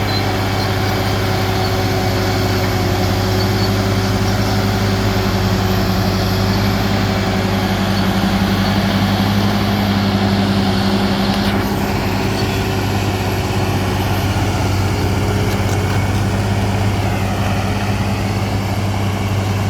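Heavy earthmoving machine's diesel engine running steadily at a constant speed, a loud, even low drone.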